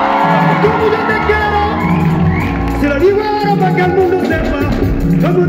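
Live band playing over a bass line that repeats in short phrases, with a man singing and calling out into a microphone and some whoops from the audience.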